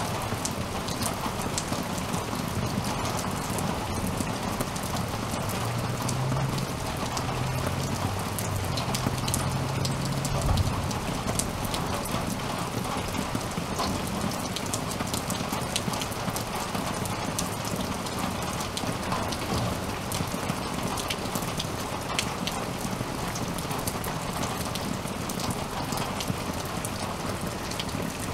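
Steady rain falling on a yard, with many individual drops ticking and dripping close by. A low hum rises underneath it about six seconds in and stops about ten seconds in.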